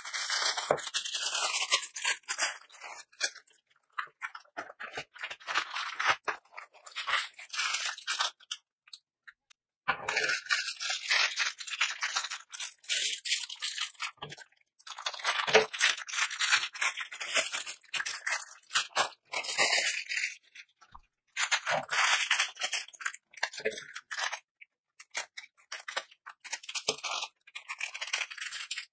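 Plastic packaging crinkling and rustling in irregular bursts with short pauses, as the plastic-wrapped diamond painting canvas and strips of small plastic bags of resin drills are handled. Scissors cut through a bag strip near the end.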